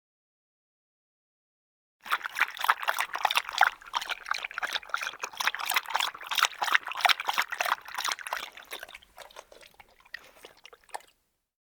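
A dog lapping water: quick, wet lapping and slurping starting about two seconds in, fading over the last few seconds and stopping shortly before the end.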